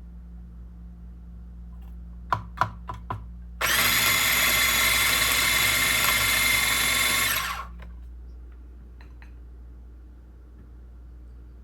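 A few sharp knocks, then a small electric motor whirring steadily for about four seconds, starting and stopping abruptly.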